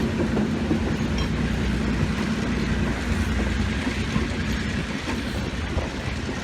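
Train pulling out behind a Sri Lanka Railways Class M2c diesel-electric locomotive: a steady low drone of the diesel engine with wheels running on the track.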